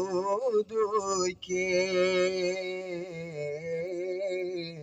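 A student's solo voice singing the nazm unaccompanied: a short phrase, a brief break, then one long held note with a wavering pitch that ends just before the close.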